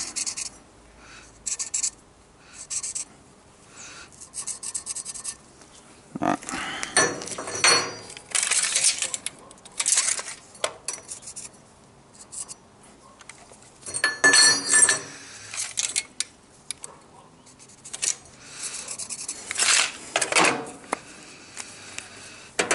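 Scattered scrapes, taps and clinks of a flat steel bar and hand tools being handled on a steel workbench while the bar is measured and marked out. There are two short bursts of ringing metal clinks, the second about midway through.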